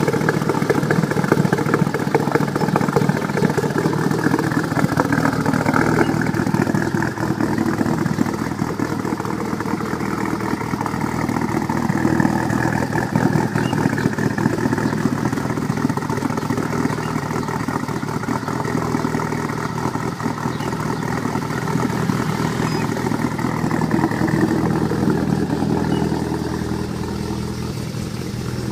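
Mitsubishi 4G63 turbocharged inline-four in a CN9A Lancer Evolution idling roughly on a morning start, with an unsteady, lumpy beat that sounds like an engine on aggressive camshafts. It settles slightly quieter near the end.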